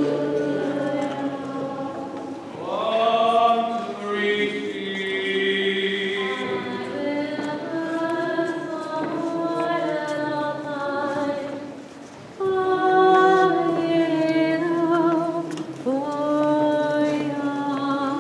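A group of voices chanting a liturgical hymn together without accompaniment, in long held phrases, with a short break about twelve seconds in before the next phrase starts.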